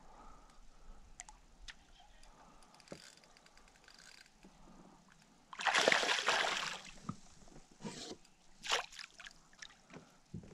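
A hooked bass thrashing at the water's surface beside a kayak: one loud splash lasting about a second, just past the middle, with a couple of shorter splashes after it.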